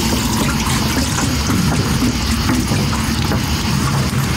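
Overheated AGM batteries in a motorhome's battery bay hissing and sizzling as they boil in thermal runaway, over a steady low rumble, with a few light knocks as they are handled.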